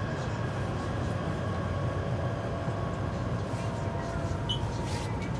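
Taipei Metro Tamsui–Xinyi line train running between stations: a steady low rumble with faint steady tones above it and a few light clicks.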